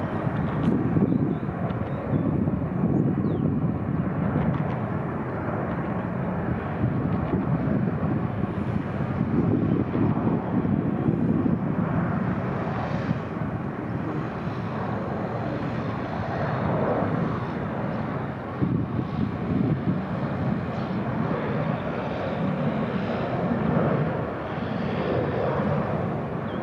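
Boeing 737-800's twin CFM56 turbofan jet engines at takeoff power: a steady rumbling roar that swells and eases slowly.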